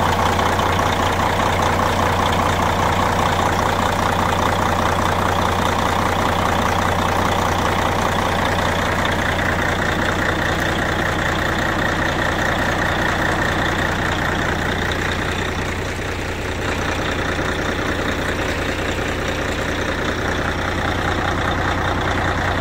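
Heavy diesel engine of a Freightliner semi truck idling steadily, with a constant low hum and a dense clatter over it.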